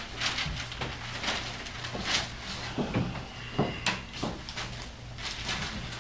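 Scattered light knocks and rustles of newspaper and objects being handled on a table, with a short paper rustle about two seconds in.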